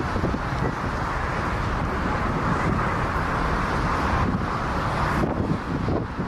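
Steady jet aircraft engine noise, a dense rushing rumble without a clear tone.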